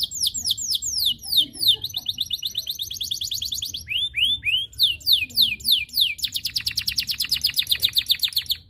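Yellow domestic canary singing a long song of rapid trills: rolls of quick, repeated falling notes that change speed from phrase to phrase, ending in a fast, even roll that stops abruptly near the end.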